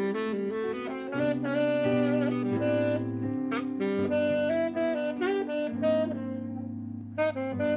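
Saxophone playing a jazz melody over electric keyboard accompaniment with sustained bass notes; the melody breaks off briefly near the end, then picks up again.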